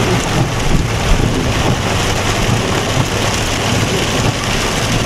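Heavy rain hitting a car's roof and windshield, heard from inside the cabin, over the steady low noise of the car driving. The sound is loud and even throughout.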